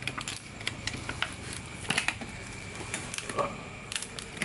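Irregular light clicks and taps of hands handling the parts of an opened LED TV's backlight assembly, over a faint steady hum.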